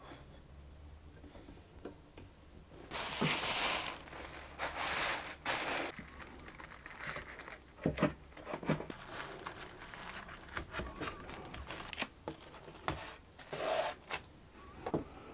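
Thin plastic sheet crinkling and rustling in bursts as it is unfolded, spread and pressed by hand into a wooden frame, with a few sharp knocks in the second half.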